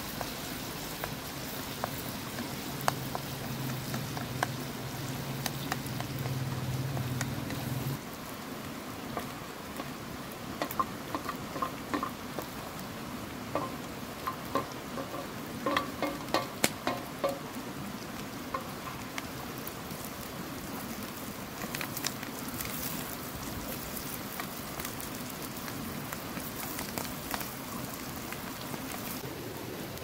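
Minced meat, potato and onion filling sizzling in oil in a metal frying pan over a wood fire, stirred with a wooden spoon. Through the middle there is a run of clinks and scrapes as chopped carrot, onion and parsley are scraped into the pan from a metal bowl.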